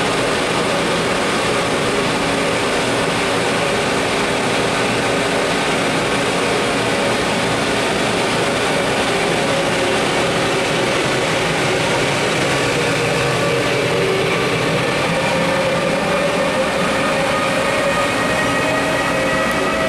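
ÖBB class 1216 Siemens Taurus electric locomotive of a Railjet, heard close up: a steady hum of its machinery with whining tones that rise slightly in pitch over the last few seconds.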